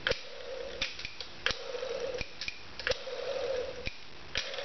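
Light aircraft magneto turned slowly by hand: its impulse coupling winds up and releases with a series of sharp clicks at uneven spacing, several of them followed by a short whir as the released magnet spins quickly.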